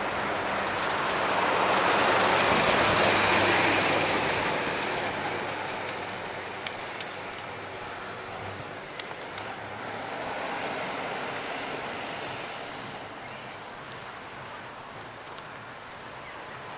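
Road traffic passing on an asphalt highway: a swell of tyre and engine noise that peaks a few seconds in and fades, then a second, weaker pass about two-thirds of the way through.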